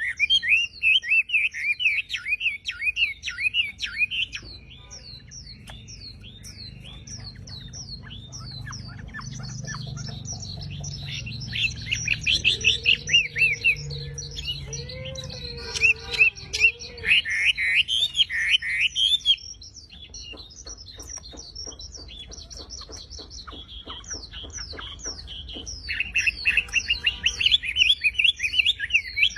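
Wambi songbird singing in rapid strings of sharp, repeated whistled notes (the 'tembakan' phrases prized by bird keepers). The song comes in loud bursts at the start, again from about ten seconds in, and near the end, softer in between.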